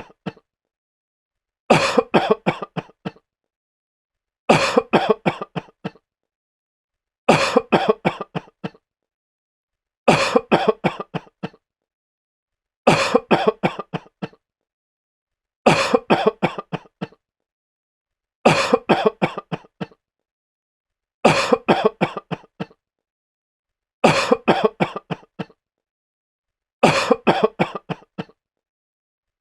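A sick man coughing in short fits of several hacking coughs, each fit dying away. The fits repeat evenly about every three seconds with silence between, ten in all.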